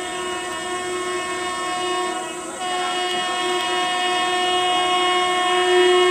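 Indian Railways locomotive horn sounding one long, steady blast with a short break about two and a half seconds in, growing louder as the train approaches.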